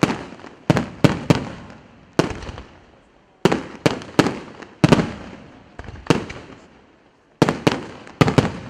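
Aerial firework shells bursting overhead: a dozen or more sharp bangs at irregular spacing, some in quick clusters of two or three, each trailing off in an echo.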